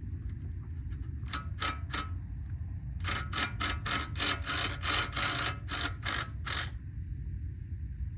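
Sharp metal-on-metal strokes from hand tools on the Discovery's front hub and suspension: three strokes, a pause, then a regular run of about a dozen at roughly three a second, over a steady low rumble.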